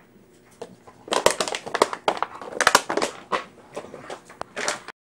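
Irregular rustling and scraping crackles with a few sharp clicks, close against the microphone: a phone being handled, its lens covered. They start about a second in and cut off abruptly near the end as the recording stops.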